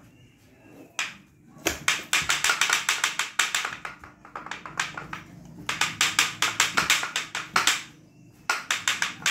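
Rapid sharp clacking, about seven strokes a second, in three runs: a barong mask's jaw being snapped shut again and again.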